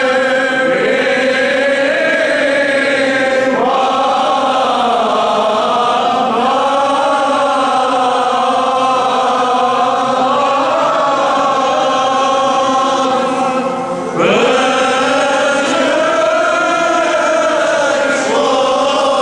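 Armenian Apostolic liturgical chant sung by a choir in long, sustained phrases, with new phrases beginning about four, fourteen and eighteen seconds in.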